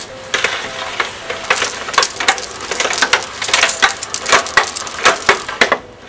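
Plastic Martha Stewart garden hose reel cranked by hand, rattling and clicking irregularly as it winds an extension cord back in.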